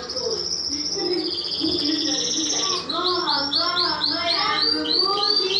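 Pet songbird singing: a long buzzy trill, then a run of repeated rising-and-falling whistled notes at about four a second.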